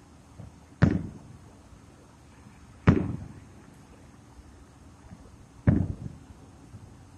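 Aerial fireworks shells bursting: three sharp booms, about a second, three seconds and six seconds in, each trailing off over about a second.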